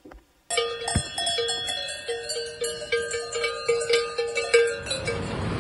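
Several cowbells clanking and ringing irregularly on grazing cows, starting about half a second in. A steady rushing noise comes in near the end.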